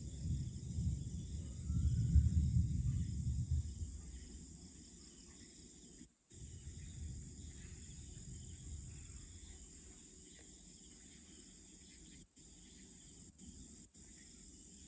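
Steady chorus of night insects, with a low rumble over the first few seconds that is loudest about two seconds in and fades out by about four seconds. The sound cuts out for an instant a few times.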